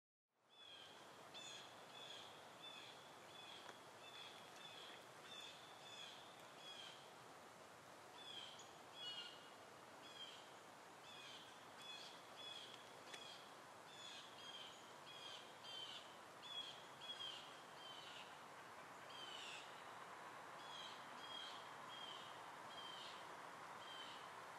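Small bird chirping over and over in short high calls, about two a second with a few brief pauses, faint over a steady outdoor hiss.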